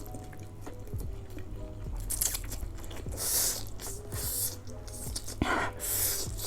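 Close-miked chewing and biting of food in several short bursts, with quiet background music.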